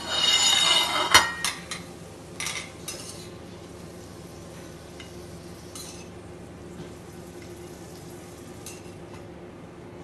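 Metal tongs scraping and clinking against a stainless-steel frying pan as pan-fried asparagus spears are picked out. Loudest in the first second, ending in a sharp clink, then a few lighter clicks.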